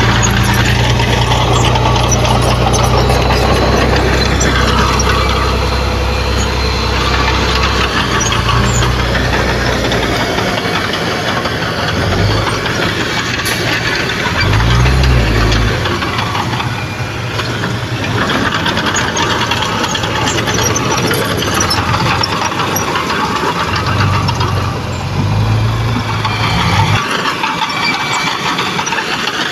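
Diesel engines of heavy earthmoving machines working soil, running steadily under a broad mechanical clatter. A deep low engine drone is strong at first, drops away about a third of the way in, and returns briefly a few times.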